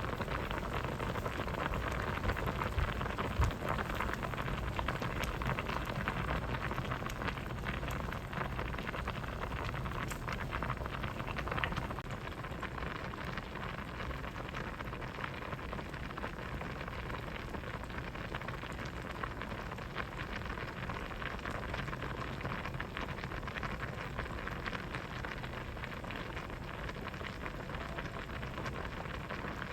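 Pot of vegetable soup boiling: a steady, dense bubbling and popping that turns slightly quieter about twelve seconds in.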